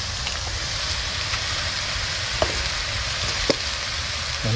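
Ginger-garlic paste frying in hot oil in a nonstick wok, a steady sizzle, with two small knocks past the middle as tomato pieces drop into the pan.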